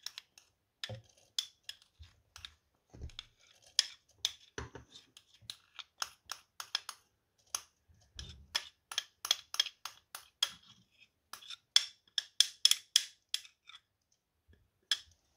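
Metal spoon clicking and scraping against a small glass bowl as sesame seeds are scraped out into a plastic blender cup. It makes a run of irregular, sharp, light clinks with a few dull knocks among them.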